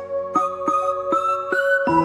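Background music: a held chord with a short run of struck notes, about three a second, stepping upward in pitch.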